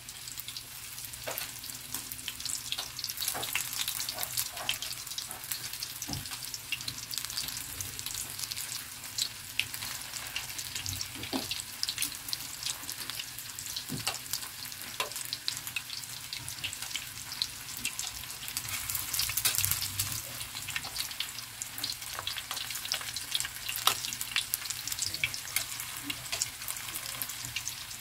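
Breadcrumb-coated eggplant rolls shallow-frying in hot oil, sizzling and crackling steadily, with a few sharper pops and clicks as they are turned with metal tongs.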